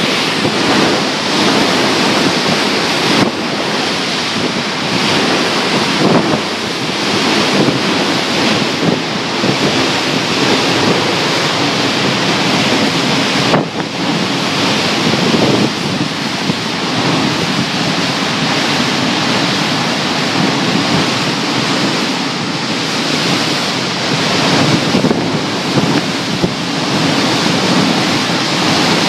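Tropical-storm wind gusting through palm trees with driving rain, a loud continuous rush that surges and eases, with the wind buffeting the microphone.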